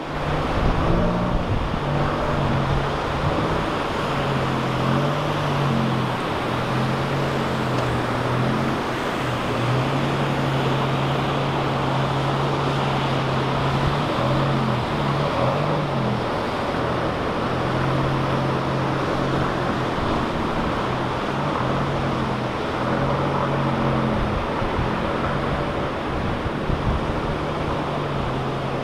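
Cars and a pickup truck driving slowly through standing floodwater: a steady wash of sloshing, splashing water and wind noise over a low engine hum.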